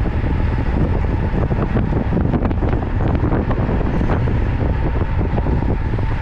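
Wind buffeting the microphone of a camera riding along on a moving road bicycle: a loud, steady rumble.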